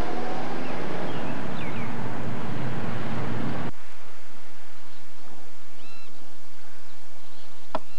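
A loud rushing, wind-like noise with a faint low drone cuts off abruptly a little over three and a half seconds in. Quiet seaside ambience follows, with a few faint bird chirps about six seconds in.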